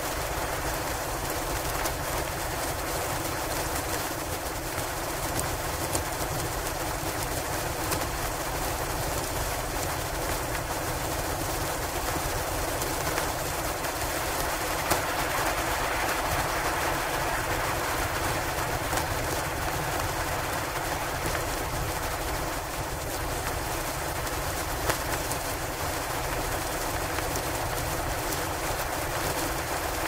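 Steady winter-storm ambience: an even rush of wind and blowing snow, with a few faint clicks.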